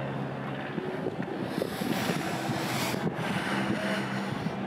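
Wind on the microphone over a steady low mechanical hum, with a rush of wind noise swelling in the middle.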